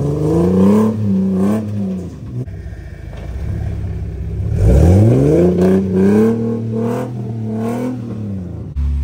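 Off-road 4x4's engine revving hard in repeated bursts under load on a trail climb, the pitch rising and falling; the biggest rev climbs steeply about halfway through, followed by several quick blips, then a steady low drone near the end.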